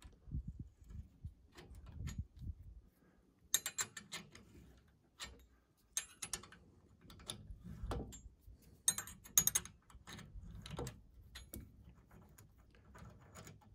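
Internal pipe wrench turning broken-off steel pipe threads out of a hydraulic fitting: irregular metallic clicks and scrapes, in small clusters, as the threads work loose.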